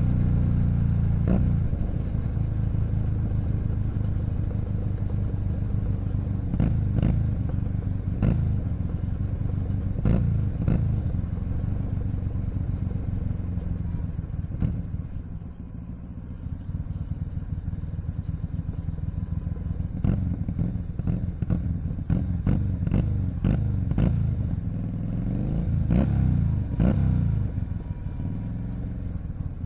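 Keeway SCR 250V motorcycle running through a custom shortened exhaust, with repeated brief revs that rise and fall over a steady low engine note. It dips quieter about halfway through, then revs again in quick succession near the end. The exhaust note is one the owner calls rounder and fuller, with a faint rattle.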